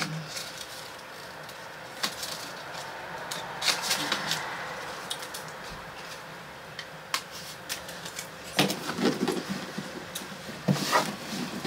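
Paper and packaging rustling and crinkling, with scattered small clicks and taps, as a receipt card is handled and slid into its envelope. It gets louder near the end as a cloth dust bag is pulled out of a box.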